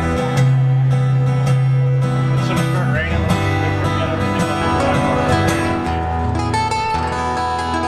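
Acoustic guitars playing an instrumental passage, with the bass notes and chords changing every second or two.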